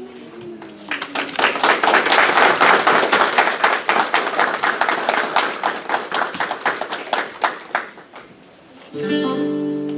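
Guests applauding, dense clapping that fades out about eight seconds in; music with sustained notes starts about a second later.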